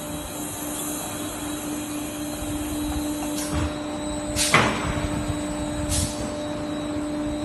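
PUR laminating machine running with a steady hum as a panel feeds under its pressure roller. Three short knocks sound over the hum, the loudest about halfway through.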